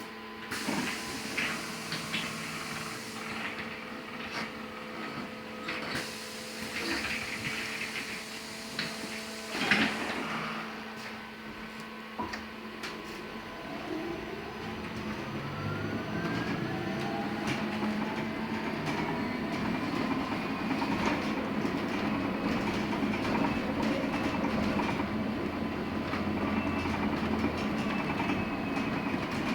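Inside a LiAZ-6274 electric bus: it stands with a steady electrical hum and a few knocks, the loudest about ten seconds in. It then pulls away, its electric traction motor whining up in pitch as road and running noise builds.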